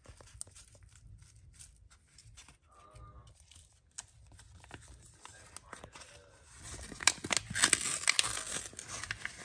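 Paper gravy-mix packet crinkling and rustling as it is shaken and handled, with scattered light clicks; the crackling gets louder and denser in the last couple of seconds.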